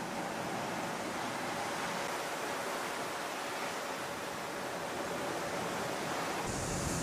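Steady rush of wind and sea waves, with a deeper rumble joining near the end.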